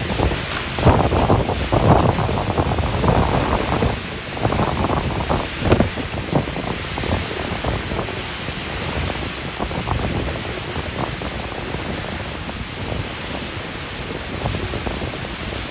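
Hurricane-force wind rushing around and buffeting a parked car, heard from inside it: a dense, loud rush with strong gusts surging in the first several seconds, then steadier.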